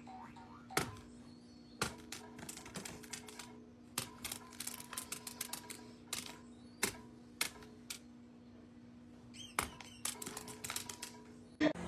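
Irregular sharp clicks and taps, some in quick clusters, over a faint steady hum.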